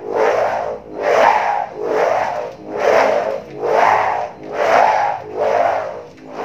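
A kite hummer bow (peteng), its ribbon strung on a bamboo bow, is swung back and forth through the air. Each swing sets the taut ribbon buzzing in a loud droning hum that swells and fades, about seven swings in a row.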